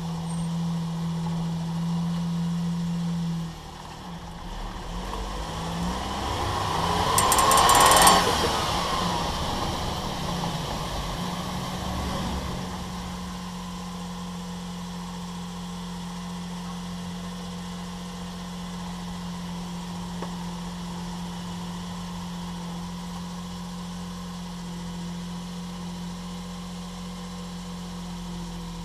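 Suzuki Jimny JA22W running with a steady low hum. It climbs in pitch to a loud peak about eight seconds in, drops back, and settles into a steady hum. The vehicle is being checked for an abnormal metallic noise from a propeller shaft joint.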